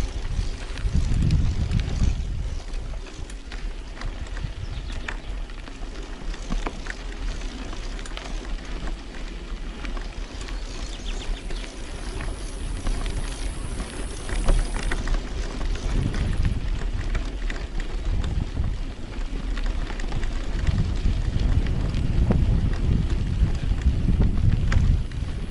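Bicycle riding with wind rumbling on the microphone in uneven gusts. Scattered clicks and rattles from the bike run through it.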